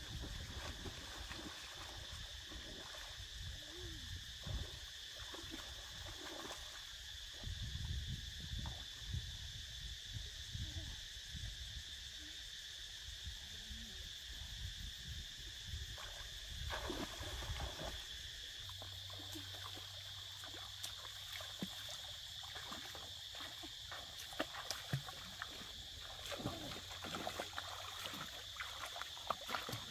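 Water splashing and sloshing in irregular bursts, with scattered knocks, over a steady high-pitched animal chorus. A faint low hum comes in about two-thirds of the way through.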